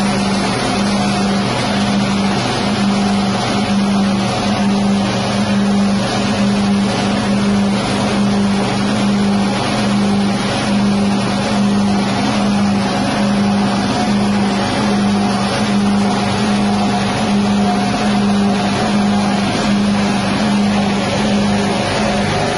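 Rice-husk hammer mill driven by a 6.5 hp petrol engine, running steadily at working speed with an even engine drone. Under it runs the constant noise of husks being ground to bran and blown out into the sack.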